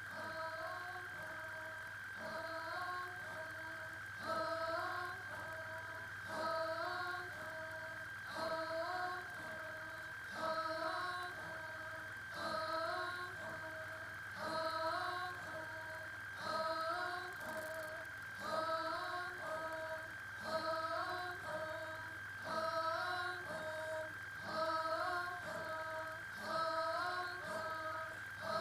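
A chorus of women singing, with one short chant-like phrase repeated about every two seconds through a sound system. A steady high tone and a low hum run underneath.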